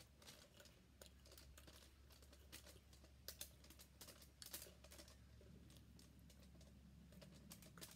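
Faint, scattered soft clicks and crinkles of eating by hand: fingers picking stewed conch and rice out of a foil pan, with chewing, over a steady low hum.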